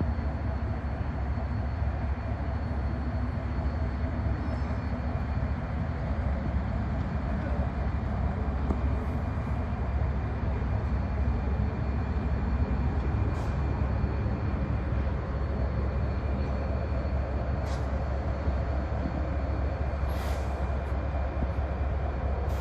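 Bangladesh Railway passenger train running, a steady low rumble throughout with a few short high-pitched squeaks.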